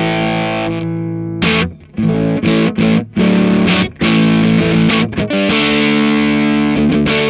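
Electric guitar, a Fender Stratocaster, played through a Marshall JCM2000 DSL100 valve amp head on the Classic Gain channel's crunch mode, close-miked: distorted chords. A chord rings and fades, then come several short chord stabs with brief stops between them, and a chord is held near the end. This is the play-test of the amp's crunch gain after its main circuit board was replaced.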